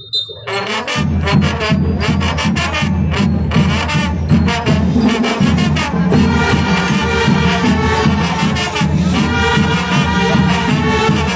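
A band with brass and drums strikes up about a second in and plays loudly with a steady beat.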